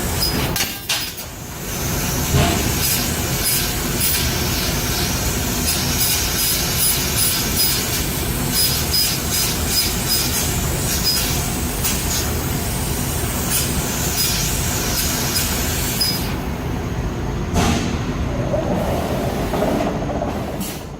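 CO2 laser cutting machine running: steady dense machine noise, with a thin high whine that comes and goes and scattered sharp ticks.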